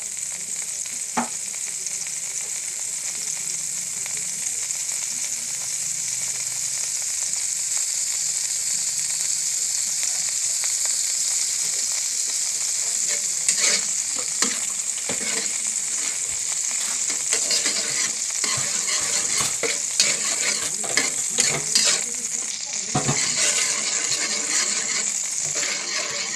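Hot fat sizzling steadily in a pan as a lump melts in it. From about halfway through, a metal spatula stirs and scrapes against the pan with frequent sharp clicks.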